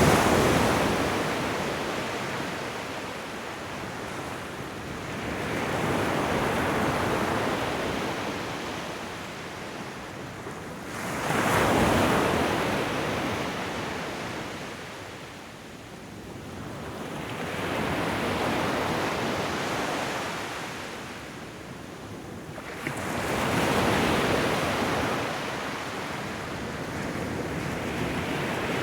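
Ocean waves washing onto a shore, each one building, breaking and drawing back, about every six seconds.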